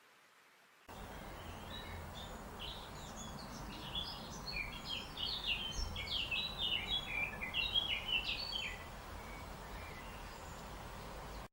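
A songbird singing a fast run of short chirping notes in quick descending phrases, over a steady outdoor background hiss and low rumble that cuts in abruptly about a second in.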